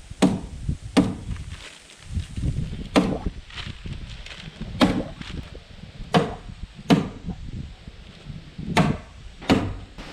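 About eight sharp knocks of blows striking wood, coming irregularly and often in pairs, with a low rumble between them.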